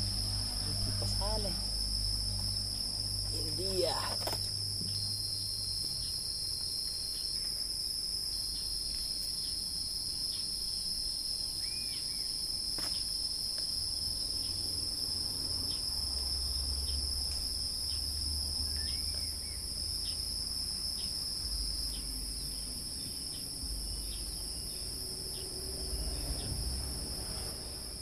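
Steady, high-pitched drone of insects chirring outdoors, with low rumbles underneath.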